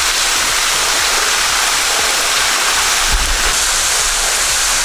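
Steady rush of falling water from a waterfall, a loud even hiss, with a brief low thump about three seconds in.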